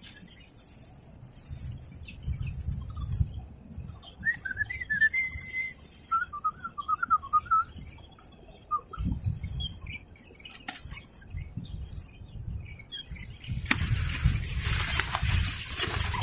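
A small bird chirping in two short, wavering trills mid-way, over low rumbling thumps. A thin steady high whine runs throughout, and a rushing hiss comes in near the end.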